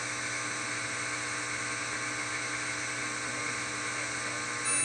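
Samsung washing machine spinning at speed in its final spin, the drum and motor giving a steady whine over a hum.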